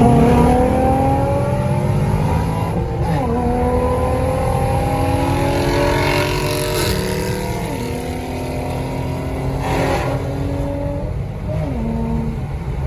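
Car engine, a Nissan VQ-series V6, revving hard under acceleration. Its pitch climbs steadily and then drops back at each gear change, several times over.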